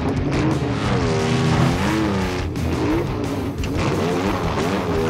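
Dubbed truck engine sound effects revving, the pitch rising and falling several times, over background music.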